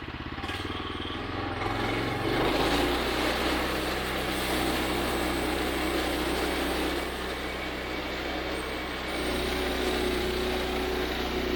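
Gas engine of a portable bandsaw mill idling, then throttled up about two seconds in and running steadily at speed. A steady higher whine joins about nine seconds in.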